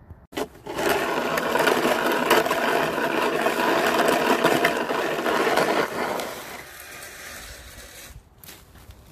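Orange plastic snow shovel scraping along pavement as it pushes a load of snow, a loud, even scrape lasting about five seconds, then quieter as the blade pushes through snow on grass.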